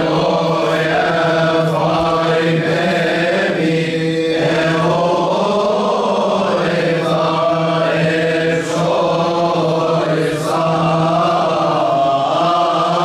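Male voices chanting a slow Coptic Orthodox liturgical hymn in unison, with long drawn-out melismatic phrases over a steady low held note.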